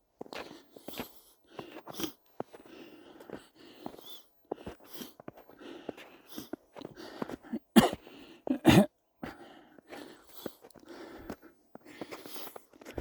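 Footsteps crunching in snow, a short crunch about once a second, with two louder, heavier crunches near the middle.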